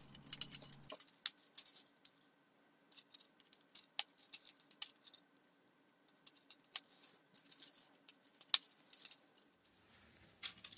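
Plastic parts of a Mega Cyborg Hand hydraulic robot hand kit clicking and rattling as they are handled and fitted together: scattered sharp clicks, the clearest about one, four, seven and eight and a half seconds in, with light rustling between.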